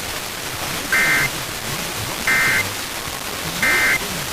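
Short electronic alert beeps, three in a row about a second and a half apart, each a brief two-tone burst, over a steady hiss of radio static.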